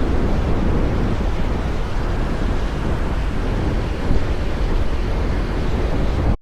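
Steady wind buffeting the microphone: a loud, even low rumble with hiss and no clear engine note, as when moving through the air. It cuts off suddenly at the very end.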